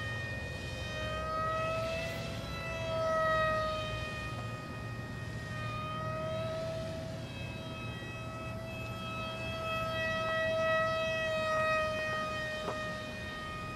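Scratch-built SB16 foam RC airplane's motor and propeller whining in flight: one steady tone with overtones that slowly rises and falls in pitch as the plane moves about the sky. A low rumble lies underneath, and there is a small click near the end.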